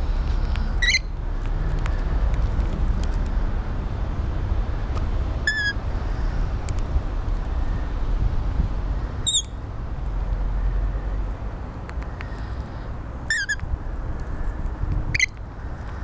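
Rainbow lorikeets giving five short, shrill screeches spread across the stretch, over a steady low rumble.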